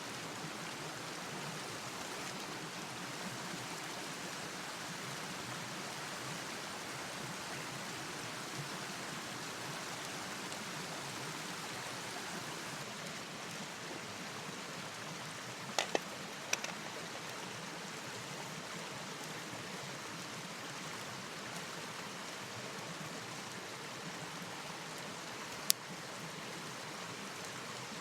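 Steady rushing noise of rain and river water, with a quick pair of sharp clicks a little past halfway, another just after, and a single sharp click near the end.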